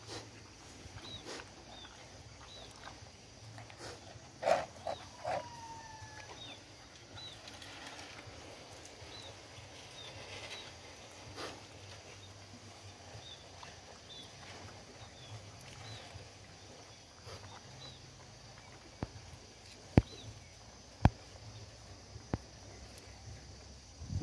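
A puppy at a plastic feeding bowl on concrete, with a few sharp clicks and knocks, over a run of short high chirps repeating about once or twice a second.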